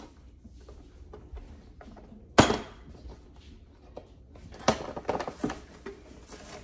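Cardboard packaging being handled: a sharp knock about two and a half seconds in, the loudest sound, then another knock a couple of seconds later followed by a quick run of lighter taps and scrapes.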